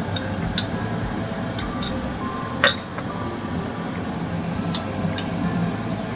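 A cooking utensil clinking against a pan as a chilli chicken gravy is stirred after cornflour slurry is added, with scattered light clinks and one sharper clink about two and a half seconds in, over a steady low hum.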